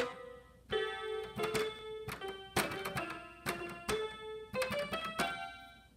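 Solo keyboard played with no singing: chords and short runs of notes struck a few at a time, each ringing and decaying, with the playing dying away near the end.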